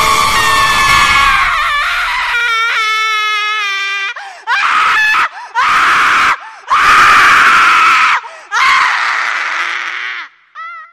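High-pitched horror screams: one long scream, then four more screams with short breaks between them, the last trailing off, and a brief cry at the very end.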